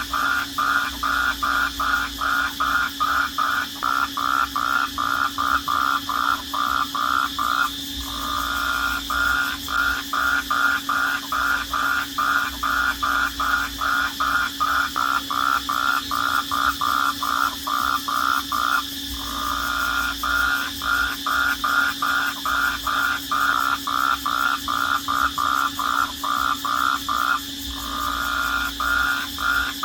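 Night-time chorus of calling animals: a loud rhythmic pulsing call at about three pulses a second, which runs together into an unbroken trill for a moment three times, over a steady high-pitched trill and a low steady hum.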